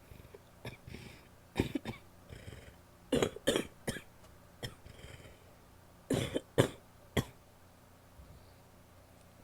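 A woman's wet coughs, coming in short fits of two or three, with quieter breaths between; the loudest fits come about three seconds and about six seconds in.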